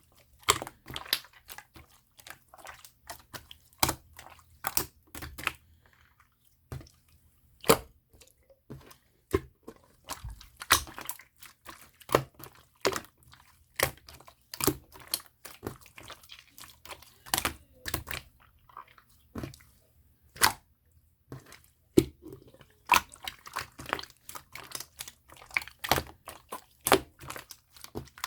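Opaque slime being squeezed and pressed by hand, giving irregular sticky clicks and pops with a few short pauses.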